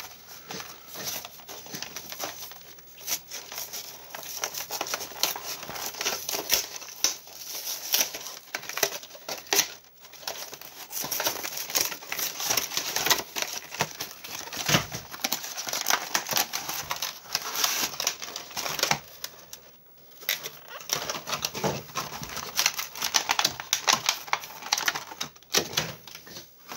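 Clear plastic blister packaging of trading-card pin collection boxes crinkling and crackling in irregular bursts as it is handled and pulled open by hand. There are short lulls about ten and twenty seconds in.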